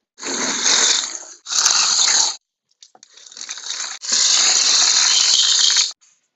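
Expanded clay pebbles (hydroponic grow media) poured from a steel bowl into a plastic bucket, pattering and rattling against the plastic. It comes in three pours, the last building up and running about three seconds before stopping.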